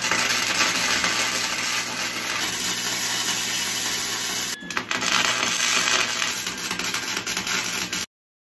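Electric arc welding on steel: the arc's steady crackling sizzle, broken off for a moment about halfway through and struck again, then cut off abruptly about a second before the end.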